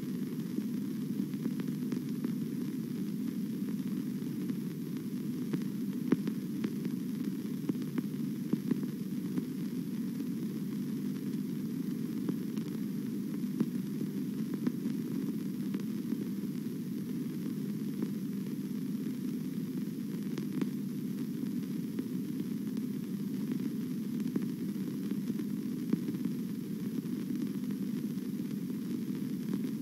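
Steady hiss and low hum with a few faint clicks scattered through: the background noise of an old film soundtrack during a silent stretch.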